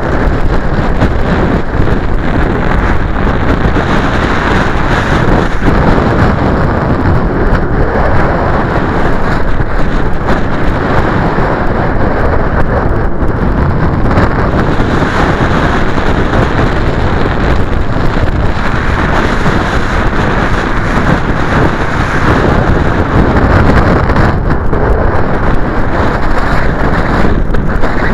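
Strong wind blowing across the microphone: a loud, steady, unbroken rumble and rush with constant gusty flutter.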